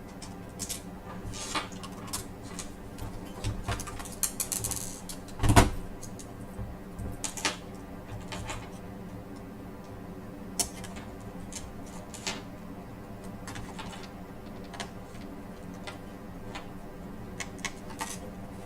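Small clicks and taps of screws and a screwdriver as a replacement laptop LCD panel is screwed into place, with one louder knock about five and a half seconds in, over a steady low hum.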